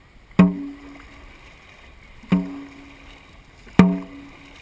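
Dragon boat drum, a large barrel drum with a nailed hide head, struck three times with a wooden stick. Each beat is a loud, low ringing hit that fades quickly. The beats come about two seconds apart, then a second and a half, setting the paddlers' stroke.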